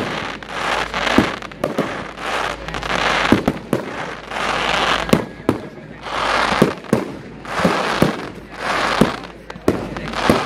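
Fireworks display: a run of sharp bangs, about two a second, with spells of crackling hiss between them.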